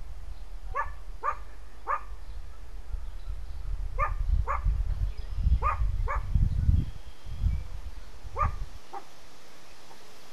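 Nine short, sharp animal calls, most of them in pairs. They sound over a low rumble that swells in the middle and cuts off shortly before the end.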